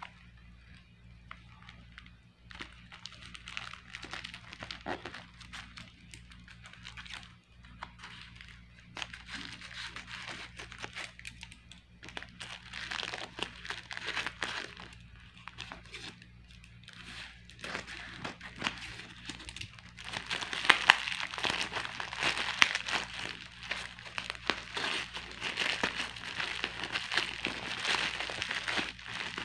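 Thin plastic courier pouch crinkling and crackling as it is handled and opened by hand, with the plastic and the bubble wrap inside rustling. It gets louder and busier about two-thirds of the way through, with a few sharp crackles, over a faint steady low hum.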